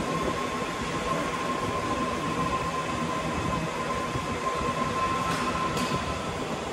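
Luggage trolley rolling over a hard tiled floor: a steady rattling rumble with a thin, steady whine, and two short clicks about five seconds in.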